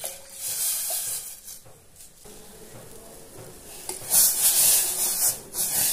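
Hissing from a pan of milk and water heating to a boil on a gas stove. It swells briefly near the start and grows louder again from about four seconds in.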